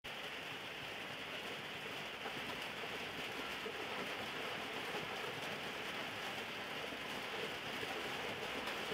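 Steady background hiss, even and unbroken, with no distinct events standing out.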